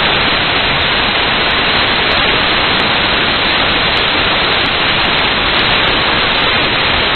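Steady loud hiss of static noise, with no change and no machine tone heard through it.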